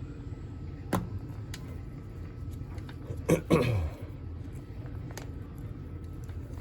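Hard plastic clicking as the toy parrot's inner shell and wing clips are pried at. About halfway there is a short grunt of effort that falls steeply in pitch, over a steady low hum.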